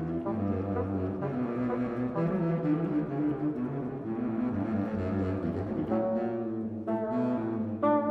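Fox bassoon and Fox contrabassoon playing a duet, the contrabassoon's low notes moving under the bassoon's line. In the last couple of seconds the upper part climbs higher over a held low note.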